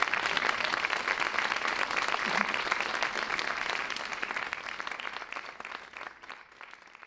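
Audience applauding, a dense patter of many hands clapping that fades away over the last few seconds.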